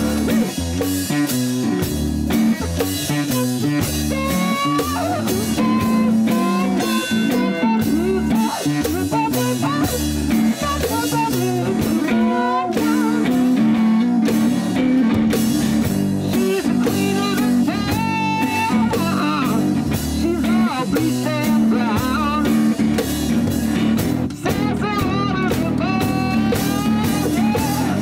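One-man band playing blues rock: electric guitar over a steady foot-played drum and cymbal beat, with a voice singing in places.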